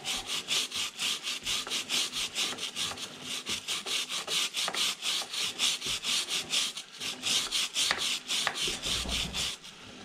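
A stiff-bristled chain brush scrubbing back and forth along a kerosene-soaked motorcycle drive chain, in rapid, even rasping strokes of about four or five a second.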